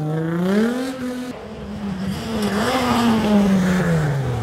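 Rally car engines being driven hard through a tight hairpin. One car's engine note climbs as it accelerates away in the first second and drops off, then the next car's engine rises and falls as it brakes, turns and accelerates.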